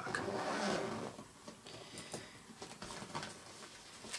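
Rustling of packaging, louder in the first second, then faint scattered handling clicks and rustles.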